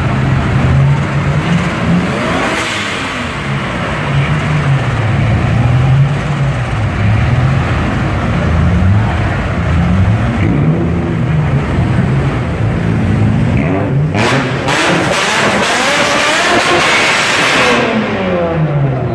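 Car engine being revved again and again, its pitch climbing and falling every second or two, with a longer, harder rev near the end that turns harsh before dropping back.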